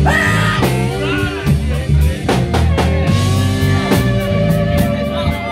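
Live blues band playing: drum kit, electric guitar and a microphone-cupped blues harmonica, with a singer's voice over them. Near the start the notes bend; in the second half the notes are held long.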